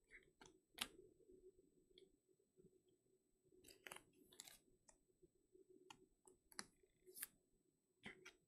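Faint, scattered clicks and scrapes of trading cards being handled and slid into rigid plastic top loaders.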